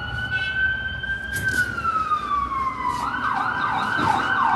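Emergency vehicle siren: a slow wail that rises, then falls over about three seconds, then switches to a fast yelp of quick up-and-down sweeps, two or three a second.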